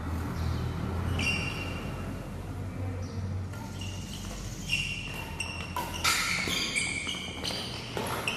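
Badminton doubles rally: court shoes squeaking in short, sharp chirps on the sports floor, more often in the second half, with rackets striking the shuttlecock. A low hum runs through the first few seconds.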